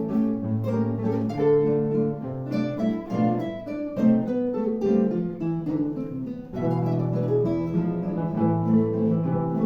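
Acoustic guitar playing a melody over sustained bass notes.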